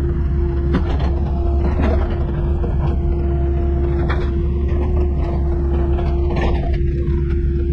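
Mini excavator's diesel engine running steadily, heard from the operator's cab: a low rumble with a constant hum over it and a few light knocks as the bucket pushes and levels soil.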